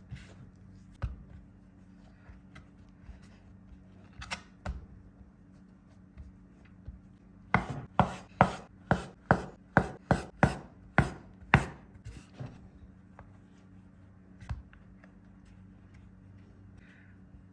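Kitchen knife chopping potatoes on a cutting board: a few single cuts, then a quick run of about a dozen strokes at roughly three a second, then a couple more single cuts.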